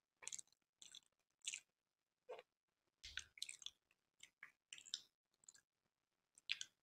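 Faint, close-miked wet chewing and lip-smacking while eating gulab jamun, in short irregular bursts.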